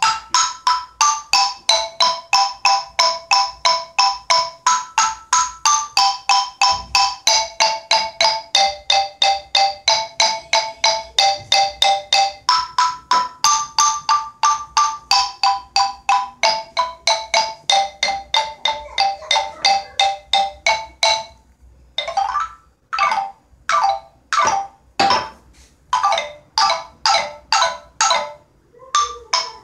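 Seven-bar pentatonic wooden xylophone with guayubira bars tuned D–E–G–A–B–D–E, struck with two ball-headed mallets in a steady run of single notes, about three a second, moving up and down the scale. After a short pause about two thirds in, the strikes turn sparser and more knock-like.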